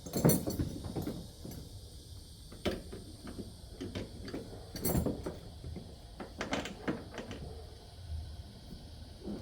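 A series of knocks and clunks from hands handling parts inside a car's interior during work on its carpet and wiring. The loudest knock comes just after the start, and more follow every couple of seconds, with a short cluster about two-thirds of the way in.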